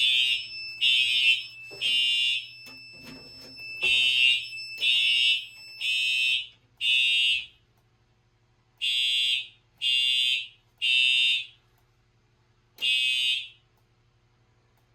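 Fire alarm horns sounding in a temporal-three evacuation pattern: groups of half-second blasts about a second apart, with longer pauses between groups. For the first four seconds or so a steady high tone sounds with them. The horns stop after a last blast near the end.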